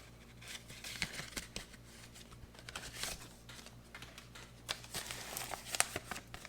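Paper rustling and small crackles as a letter and its packaging are handled, with a few sharper crinkles in the latter half.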